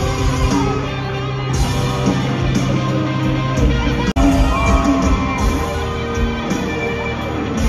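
Live rock band playing loud in an arena, heard through a phone's microphone, with an electric guitar lead sliding between bent notes over the band and crowd shouts. There is a brief dropout about four seconds in, where one clip is cut to another.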